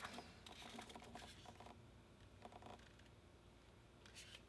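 Faint rustling and light clicks of handling as a Zoom H1n handheld recorder is slid out of its soft slip pouch. The clicks are busiest in the first three seconds, with a short scuff a little after four seconds.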